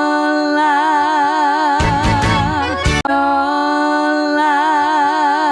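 Music: a long held note with a wide, wavering vibrato, joined by a short cluster of drum hits about two seconds in. The phrase then starts over.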